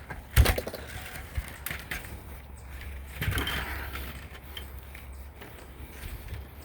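Handling noises from work on a screen door: a sharp knock about half a second in, a few lighter clicks, and a brief rustle about three seconds in, over a low steady hum.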